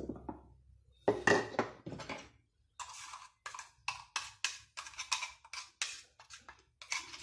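Metal spoon scraping and knocking inside a stainless steel mixer-grinder jar as ground paste is scooped out into a glass bowl. It goes as a quick run of short clinks and scrapes, about four a second, after one louder clatter about a second in.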